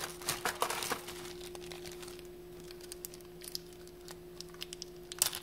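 A bag of alpaca silver jewelry crinkling as it is handled and opened one-handed, with small clicks of the metal earrings. The handling comes in bursts in the first second and again near the end, quieter between.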